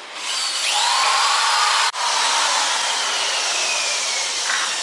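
Handheld electric power tool starting up with a whine that rises in pitch over the first second. It cuts out briefly about two seconds in, then runs on with its pitch slowly sinking.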